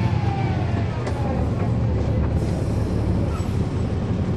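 Cummins ISL9 diesel engine of a 2010 NABI 40-SFW transit bus running under a steady low drone, heard from inside the cabin. A fainter whine falls in pitch during the first second. A few light clicks or rattles sound.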